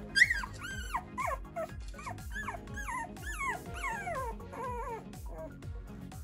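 Newborn Cavoodle puppy whimpering and crying, a quick run of high squeals that each fall in pitch, stopping about five seconds in. Background music plays underneath.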